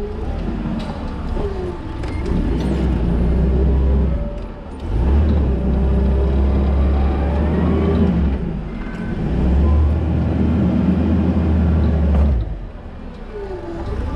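Toyota counterbalance forklift running as it drives with a load. Its low drone swells twice, for about three seconds each time, midway through and again shortly before the end.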